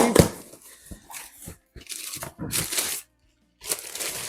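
Packaging rustling and crinkling in irregular bursts as a parts package holding new turn-signal lights is opened and handled.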